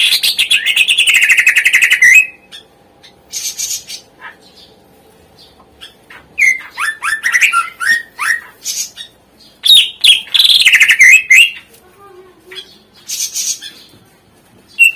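Cucak ijo (green leafbird) singing a varied, loud song. Two long, very fast trills each slide down in pitch over about two seconds, one at the start and one about ten seconds in. Between them come a string of quick downward-sweeping notes and short hissing bursts.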